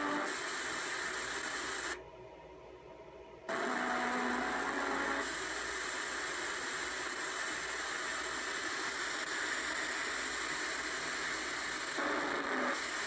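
Steady electronic hiss with a thin high whine over it, played through TV speakers: audio noise on the HDMI output of a Blackmagic Design SDI-to-HDMI Mini Converter, a fault that is there with no program audio playing. It drops away for about a second and a half about two seconds in, then comes back at the same level.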